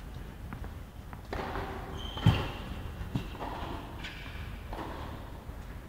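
Tennis ball bounced on an indoor hard court by a player before serving: a few short thuds, the loudest about two seconds in and another about a second later.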